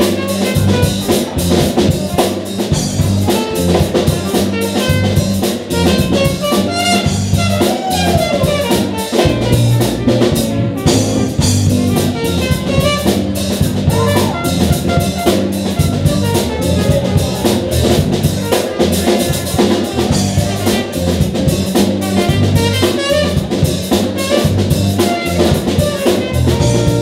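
Live jazz-funk band playing: trumpet, trombone and saxophone over electric guitar and a drum kit keeping a steady beat.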